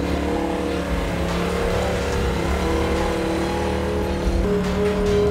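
Polaris RZR XP Turbo side-by-side's engine running through a Gibson performance exhaust as it climbs a dirt slope towing a trailer, under background music of held chords that change every second or two.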